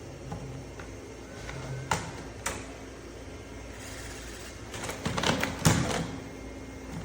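A steady low machine hum, with two sharp clicks about two seconds in and a short burst of clattering knocks around five seconds in.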